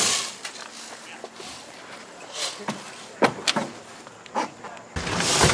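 Scattered sharp cracks and knocks, single and spaced a second or so apart, with a rush of noise starting near the end.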